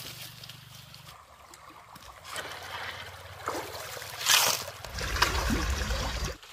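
Shallow stream water running, with a splash and the scrape of stones as a shovel scoops creek pebbles out of the water about four seconds in. A low rumble comes in near the end.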